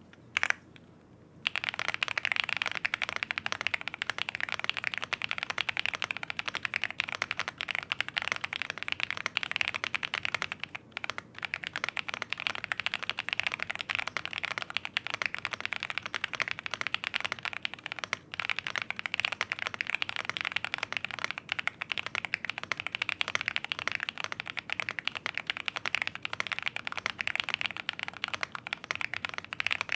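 Fast, continuous typing on a Velocifiretech M75 75% mechanical keyboard, a foamed board with linear switches and double-shot PBT keycaps. The keystrokes are clacky and fairly high-pitched. One lone click comes just before the typing starts, about a second and a half in, and there are a couple of brief pauses.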